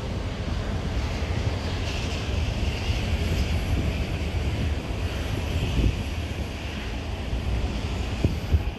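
A steady outdoor roar: wind rumbling on the microphone over the distant drone of jet aircraft at the airport, with a hiss that swells and fades. A couple of brief low bumps come about six and eight seconds in.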